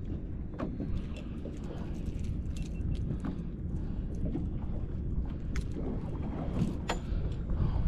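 Steady low wind and water rumble on a drifting boat, with scattered small sharp clicks and ticks as a hook is worked out of a calico bass's mouth by hand; one click near the end is louder.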